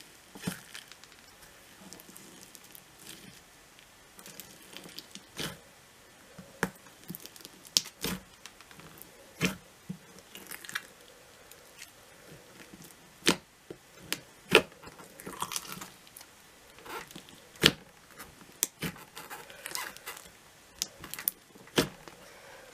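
White slime being kneaded and stretched by hand with foam beads mixed in, giving irregular crunching and sharp popping sounds.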